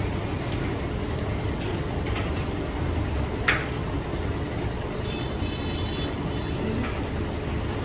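Boondi frying in a kadhai of hot oil over a fired stove: a steady low rumble and hiss, with a sharp metal clink about three and a half seconds in as the perforated skimmer knocks against the pan, and a few lighter clinks.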